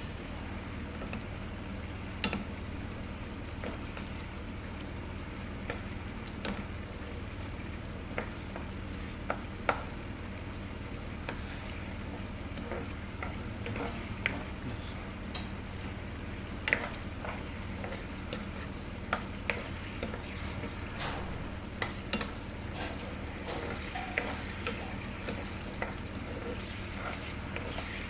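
Pork asado cooking in its sauce in a nonstick frying pan while a plastic spoon stirs it, with irregular sharp clicks as the spoon knocks against the pan. A steady low hum runs underneath.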